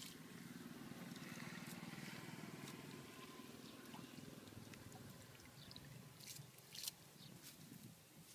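Faint trickling and dripping of water as a wet cast net is gathered out of a muddy pond, with a couple of sharp slaps about six and seven seconds in.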